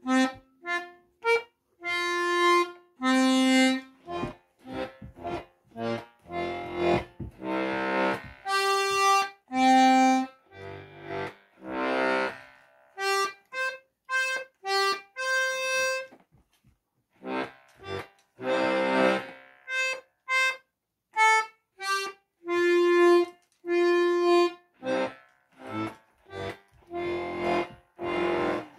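A child playing a bayan (button accordion): single notes and chords in short phrases, stopping and starting with brief pauses between them.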